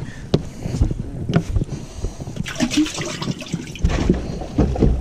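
Water splashing and gurgling as a freshly caught bass goes into the water, with sharp knocks of handling on the boat.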